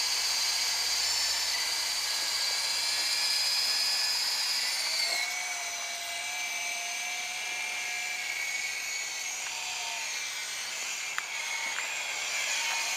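Small electric radio-controlled helicopters flying, their motors and rotors making a steady high whine. The pitch drops and shifts about five seconds in as the throttle changes.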